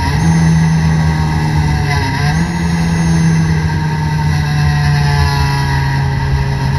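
Race-prepared Toyota Corolla's four-cylinder engine heard from inside the car, running at steady part-throttle revs. The engine note dips briefly and picks up again twice, once at the start and once about two seconds in, then holds steady.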